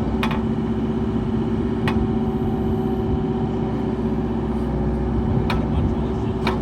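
JCB 1CXT compact tracked backhoe loader's engine idling steadily, with a few light clicks over it.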